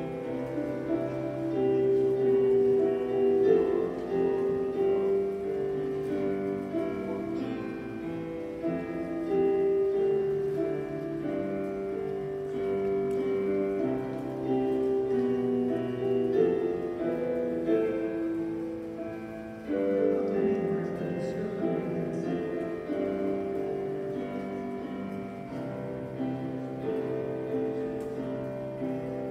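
Instrumental church music on a keyboard: slow, long-held chords that shift every few seconds, with a change of phrase about two-thirds of the way through.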